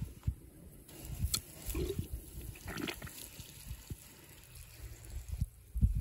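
Water running weakly out of a garden ball valve's hose connector on a livestock water line, at very poor pressure because the line is leaking somewhere. Low rumble and a few clicks from handling the valve.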